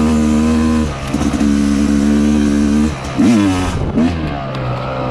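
Yamaha YZ250X two-stroke single-cylinder dirt bike engine running at low revs under load on a trail, lugging. It dips briefly about a second in, gives two quick rev blips about three to four seconds in, then settles to a lower steady note.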